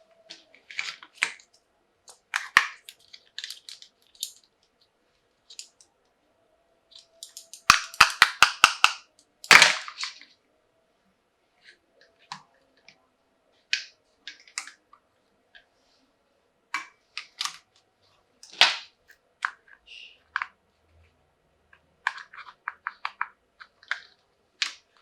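Toy doctor-kit pieces and their packaging handled during unboxing: scattered taps, clicks and crinkles, with a quick run of about seven clicks around eight seconds in and a loud snap just after.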